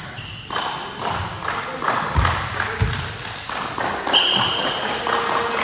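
Indoor volleyball play in a gym hall: several dull thuds of the ball and players landing over a background of echoing voices, with a short high tone about four seconds in.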